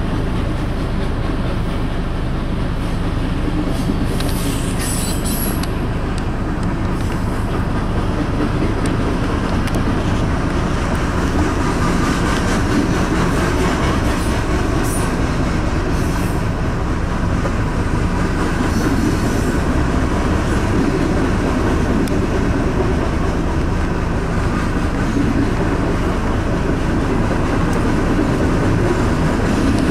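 Freight train cars rolling past: a steady rumble and clatter of covered hopper and tank car wheels on the rails. Brief high-pitched wheel squeals come about four seconds in and again about fifteen seconds in.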